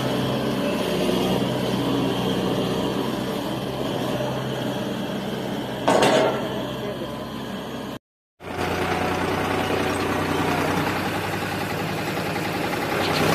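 Heavy farm diesel engines of a tractor and a combine harvester running steadily, with one sudden loud bang about six seconds in. The sound drops out for a moment just after eight seconds, then the tractor engine runs on.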